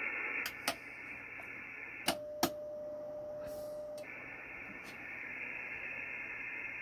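Shortwave band noise hissing from an Icom IC-7300 receiver through its external speaker, broken by a few sharp clicks as buttons on the LDG AT-1000 Pro II antenna tuner are pressed to change antennas. About two seconds in, the hiss cuts out and a steady single tone sounds for about two seconds, then the band noise returns.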